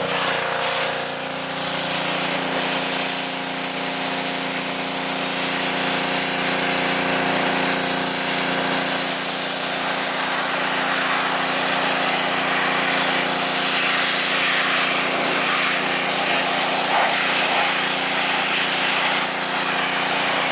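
Pressure washer running steadily, its jet hissing as it sprays the windshield and the seams at its base, with the machine's steady hum underneath.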